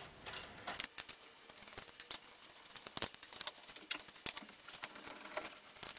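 Faint, irregular clicks and light metal taps of a socket wrench spinning off the last wheel nuts, as the front wheel is worked off its studs.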